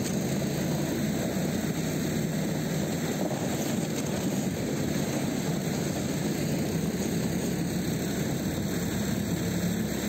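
Steady engine noise of a small over-snow vehicle towing a sled, heard while riding.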